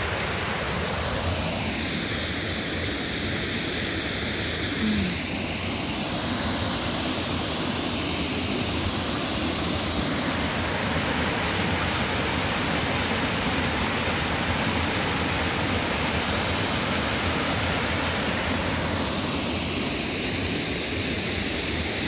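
Small forest-creek waterfall pouring over a rock ledge into a pool: a steady rush of falling water, its tone shifting slowly now and then.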